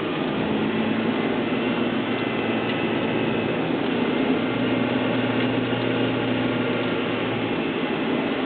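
Steady in-cabin engine hum and tire and road noise from a 2004 Honda Civic Si hatchback coasting down a steep grade.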